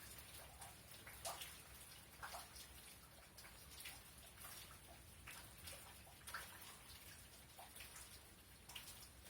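Faint rain: irregular raindrops and drips tapping a few times a second over a soft steady hiss.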